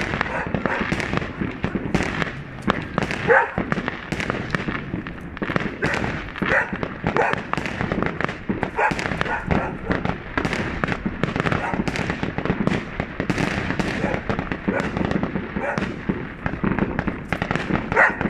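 New Year fireworks going off many at once: a dense, unbroken stream of crackles and bangs.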